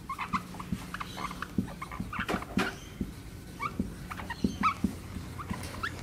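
Dry-erase marker squeaking and scratching in many short strokes across a whiteboard as words are handwritten.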